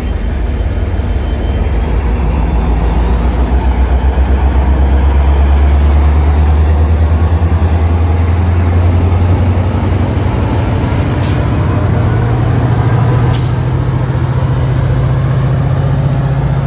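Metra diesel locomotive's engine working hard as the train pulls out, a loud throbbing drone whose pitch climbs about halfway through as the engine revs up. Two short clicks partway through.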